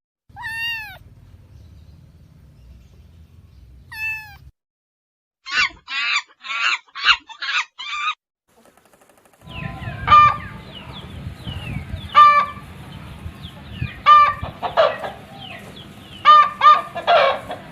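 A cat meows twice, a few seconds apart, each call falling in pitch. Then comes a quick run of six short calls, and from about halfway on, chickens cluck again and again over a steady noisy background.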